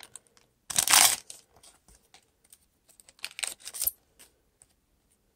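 Foil trading-card pack being torn open and handled: a loud rip lasting about half a second, then scattered crinkles and clicks of the wrapper and cards, with a cluster of crackles a little past three seconds in.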